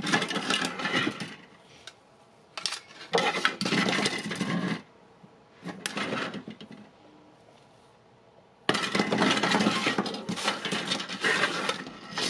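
Milled metal and 3D-printed handwheel prototype plates and housings clattering and scraping against each other and the table as they are shuffled and laid out by hand, in several bursts with quiet gaps between, the longest from about nine seconds in.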